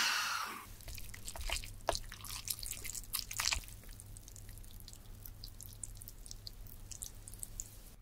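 Faint wet, sticky ticks and pops of jjajang noodles in black bean sauce being stirred and lifted with chopsticks, dense for the first few seconds and thinning out later. A soft fizzing hiss dies away in the first second.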